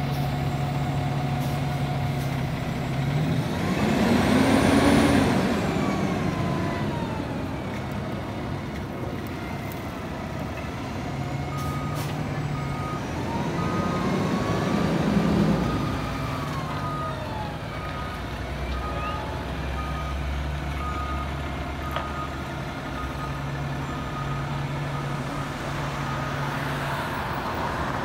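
2017 Pierce Arrow XT fire engine's diesel idling with a steady low hum, then its reversing alarm beeping evenly over and over through the second half as it backs into the station bay. Traffic swells and fades past twice before the beeping starts.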